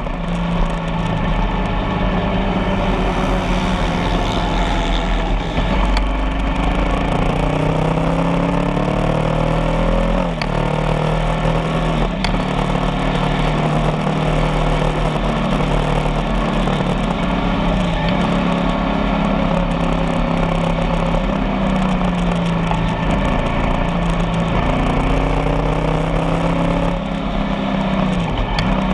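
Motorcycle engine running steadily under way, its pitch holding and then dipping sharply three times as it shifts gear.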